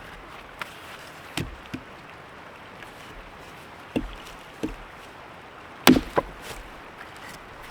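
Firewood being chopped and split: several sharp wooden strikes at irregular intervals, the heaviest about six seconds in, followed quickly by two lighter ones.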